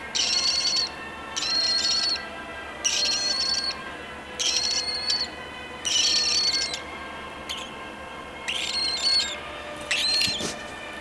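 Baby cockatiel chick's repeated raspy food-begging calls to its mother, about seven calls each under a second long, roughly one every second and a half.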